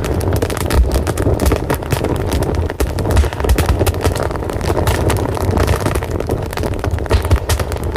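Fire burning with a steady low roar and frequent sharp crackles and pops scattered throughout.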